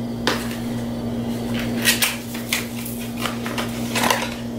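A small cardboard product box being opened and the bottle slid out of it: a scattered run of light taps, scrapes and rustles, over a steady low hum.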